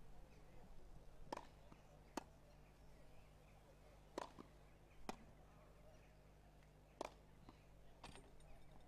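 Tennis balls struck back and forth with racquets in a warm-up rally: six sharp pops spaced about one to two seconds apart, some with a fainter tick soon after.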